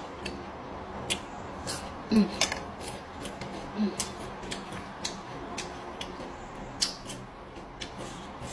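Close-up eating sounds: irregular crisp clicks and wet smacks of chewing raw petai (stink beans) and raw vegetables, with a couple of brief hums of pleasure.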